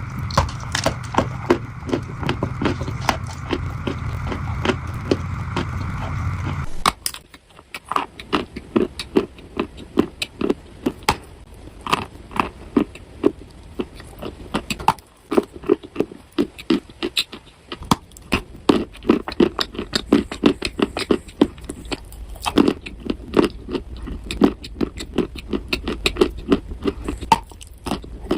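Dry clay being crushed and crumbled, a dense run of sharp crunches and crackles. For the first seven or so seconds a steady hum lies under the crunching, then it cuts off suddenly and the crackling goes on over a quieter background.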